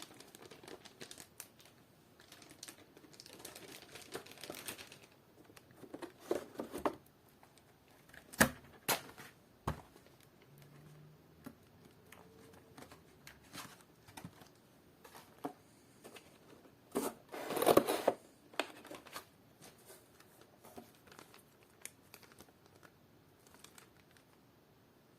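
Packaging being unwrapped and handled: rustling, crinkling and tearing, with scattered sharp clicks and knocks and a louder burst of handling about two-thirds of the way through.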